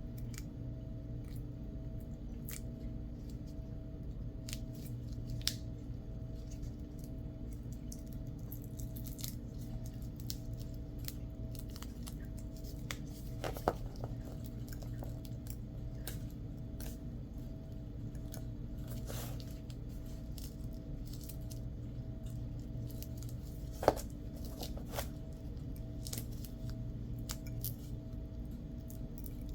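Hand crafting work: scattered small clicks, snips and scrapes of tools and patch materials being handled, over a steady low hum. Three sharper clicks stand out, about 5, 14 and 24 seconds in, the last the loudest.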